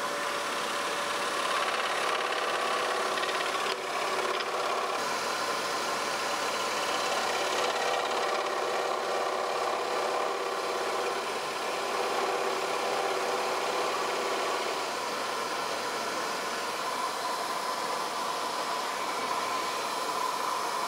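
Axminster AW405FS scroll saw running steadily, its No. 5 modified-geometry blade cutting small leg details into a 17 mm tulipwood block.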